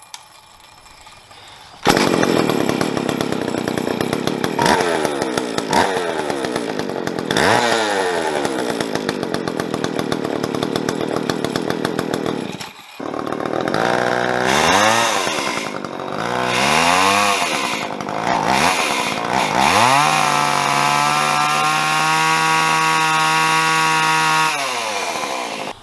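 Jonsered 520SP two-stroke chainsaw starting about two seconds in and running, its engine speed rising and falling with repeated throttle blips. After a short break it revs up and down a few more times, then holds a steady high rev for several seconds before dropping off near the end.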